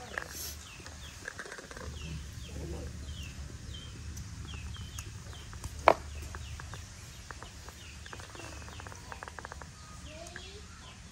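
Small birds chirping over and over in short high calls, with a single sharp knock about six seconds in and a run of soft clicks after it.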